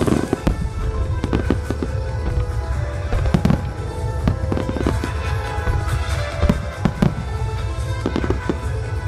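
Starmine fireworks barrage: a dense run of aerial shell bursts and crackles, a strong burst right at the start, with music playing under it.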